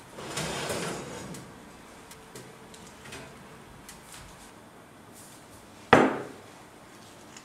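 Glass baking dish slid out along a metal oven rack with a scraping rustle lasting about a second, then, near the end, set down on a wooden cutting board with one sharp knock.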